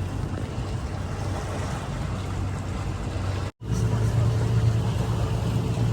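Speedboat engine running steadily with a low hum. The sound cuts out for a split second about three and a half seconds in and comes back louder.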